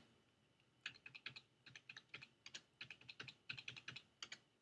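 Faint keystrokes on a computer keyboard in quick uneven runs, starting about a second in: a password typed at a prompt, then typed again to verify it.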